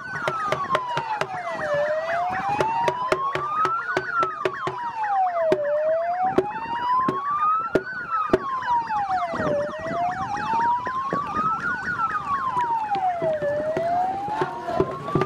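Emergency-vehicle siren on a slow wail, its pitch rising and falling smoothly, one full rise and fall about every four seconds. Many sharp knocks or clicks sound over it throughout.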